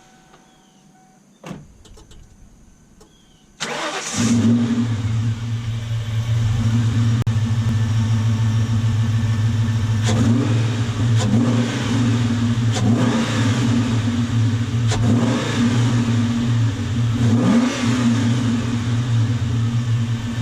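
A 1998 Mustang Cobra's 4.6-litre DOHC V8 starting about three and a half seconds in after a brief crank, then running steadily at idle, breathing through a newly installed JLT cold air intake.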